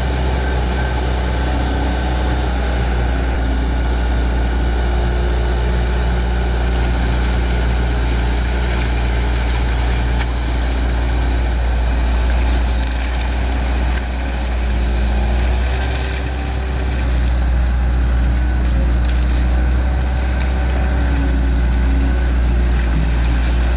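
Hydraulic excavator's diesel engine running steadily, a low drone that dips briefly a little past the middle.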